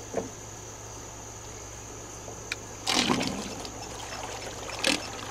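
Electra Pal 12-volt electric trolling motor running in reverse with its propeller submerged in a tub, churning the water, over a low steady motor hum. Brief louder surges of churning about three seconds in and again near the end.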